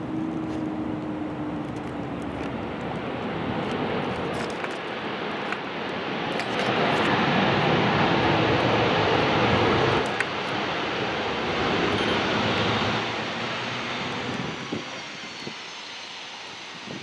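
Jet aircraft passing, a broad engine rush that builds to its loudest in the middle, dips, swells again briefly, then fades away near the end.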